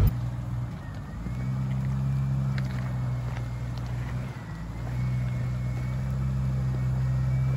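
Jeep Cherokee XJ's engine running at low revs as it crawls up a rocky trail in low gear. It dips briefly and grows louder about five seconds in.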